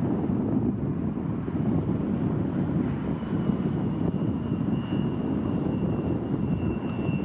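Steady low rumble of aircraft engines across the airfield, with a thin high whine coming in about three seconds in.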